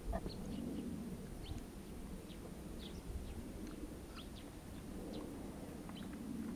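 Short, high bird chirps scattered throughout, over a low pigeon cooing that swells near the start and again near the end.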